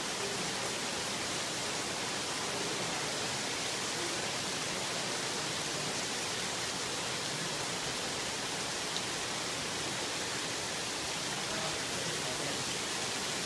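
Heavy rain pouring down steadily in a sudden sun shower: an even, unbroken hiss.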